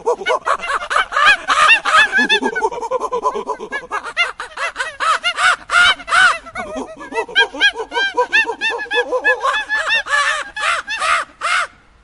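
An animal calling over and over in a rapid series of short, pitched cries, stopping abruptly near the end.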